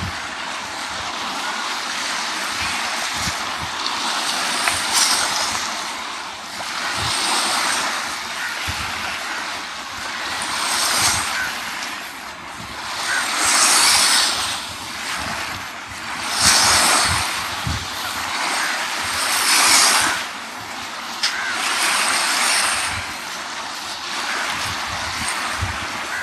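Sea waves washing onto a sandy beach, the hiss of the surf swelling and fading every few seconds, with wind buffeting the microphone in low thumps.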